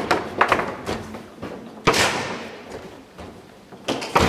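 Garlando foosball table in play: sharp knocks of the ball being struck by the plastic figures and of the rods clacking, with the loudest bang about two seconds in, followed by a brief ringing decay.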